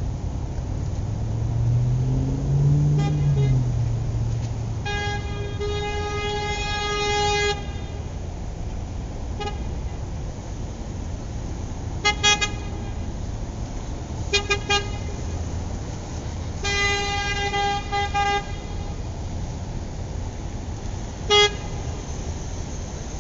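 Toy vehicle's electronic horn tooting over and over, in long blasts and short single and double beeps, all on one pitch. Under it runs a steady low hum, with a low tone that rises and falls in the first few seconds.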